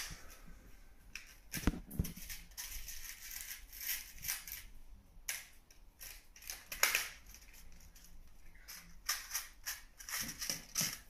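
Hands handling fishing line, a hook and small clear plastic tackle while tying a rig: scattered sharp clicks and bursts of crinkly rustling.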